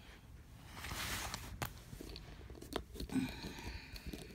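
Crinkling and rustling of a large diamond painting canvas and its plastic cover film being handled and spread out, with a few sharp clicks and crackles.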